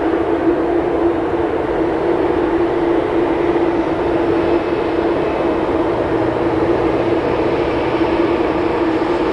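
Boeing 787-8 jet engines at takeoff power during the takeoff roll: a steady roar with a constant low hum running through it.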